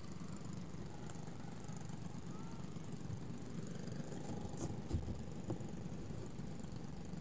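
Small kart engines running steadily at a distance, with a couple of sharp knocks about five seconds in.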